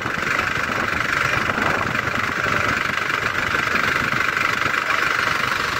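New Holland TS6.120 tractor's turbocharged diesel engine running steadily, heard close up with the hood open.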